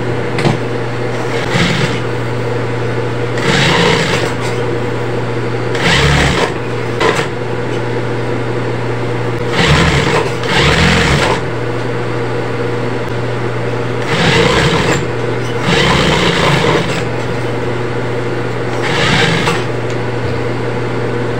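Juki industrial sewing machine stitching in short runs of one to two seconds, about six times, over a steady hum between runs.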